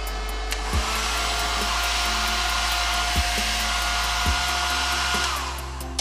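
Hair dryer's blower fan, converted to run from a 12 V DC supply, spinning up about a second in to a steady whine and rush of air, then winding down near the end as the power is cut. The fan running is the sign that the 12 V conversion works.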